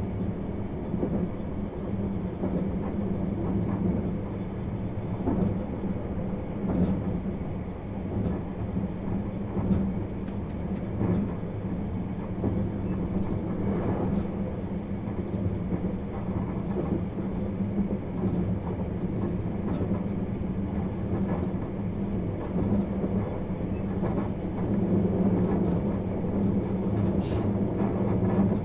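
Interior running sound of a JR East 651 series electric train under way: a steady rumble of wheels on rail under a constant low hum, with a few faint clicks scattered through it.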